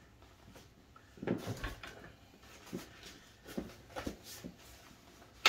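Scattered light knocks and rustling as the frame parts of a portable pickleball net, its feet and posts, are handled and set in place, with a sharper click at the end.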